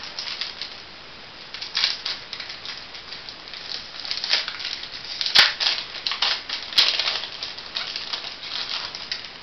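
Foil booster pack wrapper being crinkled and torn open, with trading cards handled: a run of crackling rustles with two sharp snaps, about five and a half and seven seconds in.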